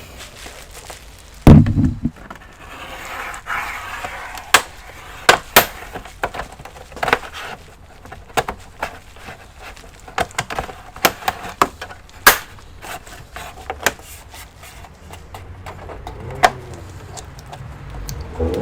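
Handling and prying at the plastic case of an all-in-one PC: a run of sharp clicks and knocks, with a heavy thump about a second and a half in and a short scrape soon after.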